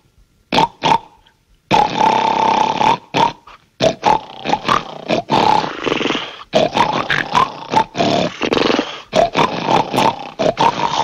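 Cartoon snoring sound effects: a rapid series of loud snores and snorts of different pitches, some short and some drawn out.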